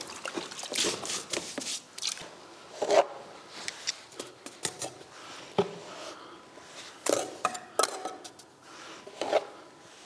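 A brush swishing water onto a dry old brick wall to wet it so new mortar will set better: quick strokes through the first two seconds, then scattered knocks and scrapes.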